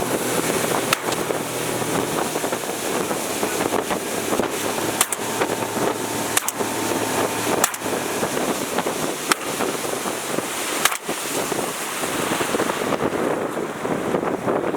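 Motorboat engine running under steady wind noise on the microphone, with several sharp knocks scattered through it.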